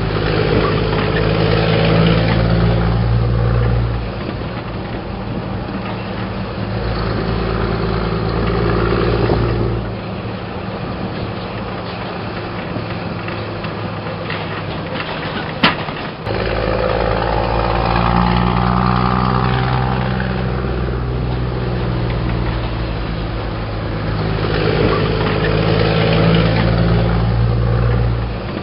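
Scania R420 truck's diesel engine through an open, free-flowing exhaust, running under load as it follows close behind. The deep engine note is loud at first, eases after a few seconds and nearly drops away for several seconds in the middle. A sharp click comes about halfway, and then the deep note comes back strongly until near the end.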